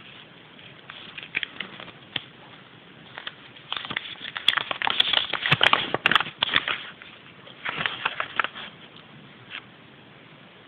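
Crinkling and crackling of a Kinder Surprise egg and its wrapping being handled by hand, in several bursts of rapid clicks, loudest in the middle.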